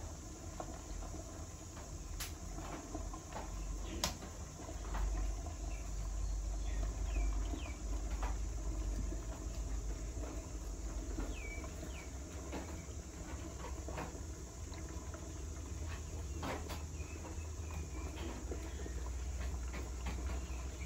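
Low steady rumble of a rice-paper steamer pot boiling over the fire, while a ladle spreads rice batter over the steaming cloth, with a few sharp clicks and scrapes from the ladle. A few faint high chirps sound in the background.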